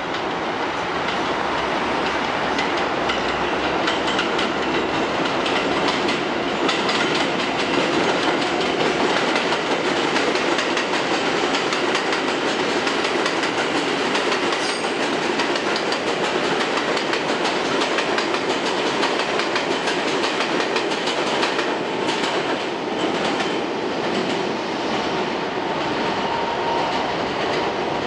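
R142A New York City subway train running through an elevated station at speed without stopping, its wheels clattering over the rail joints as the cars pass.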